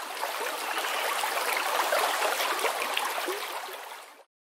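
Running stream water burbling and splashing. It swells to its loudest about halfway, fades, and cuts off near the end.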